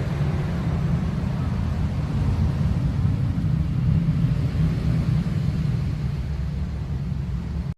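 Low, steady rumble of a car engine running.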